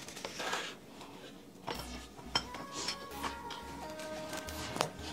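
Plastic cling wrap crinkling as it is pressed over food, with a few light clicks and taps. Soft background music with plinking notes comes in about a second and a half in.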